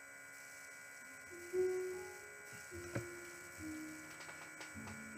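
A steady electrical hum with a thin high whine. About a second and a half in, a run of held low notes joins it, each lasting about a second and stepping to a new pitch.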